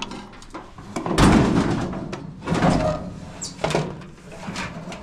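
Clunks, knocks and rattles of dryer parts being handled and moved inside an open dryer cabinet, the loudest a heavy clatter about a second in.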